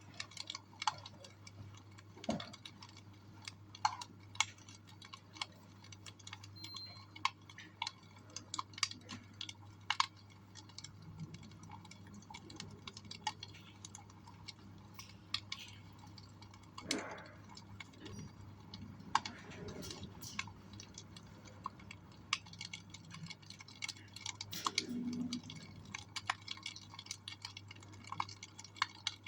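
Wood fire crackling in a fireplace: irregular sharp pops and snaps, some louder than others.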